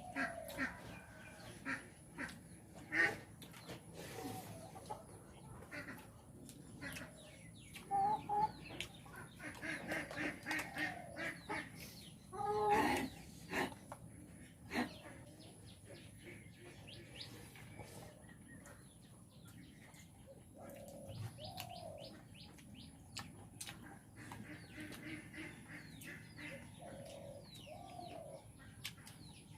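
Clicks and smacks of people chewing while they eat, with short clucking calls of fowl now and then.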